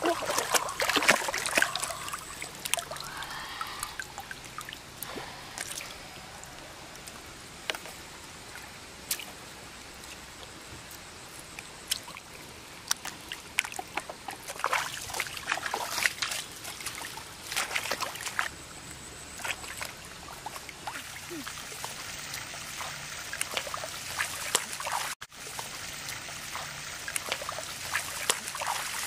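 Hands sloshing and splashing through shallow muddy water, in irregular splashes with trickling water between them.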